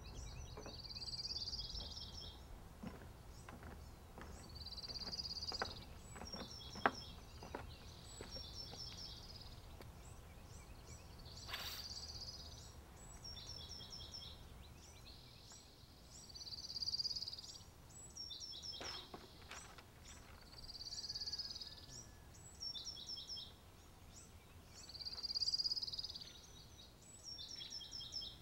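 Wild birds singing, repeating short phrases of rapid high chirps every few seconds, over a low steady outdoor rumble. A few faint clicks, the sharpest about seven seconds in.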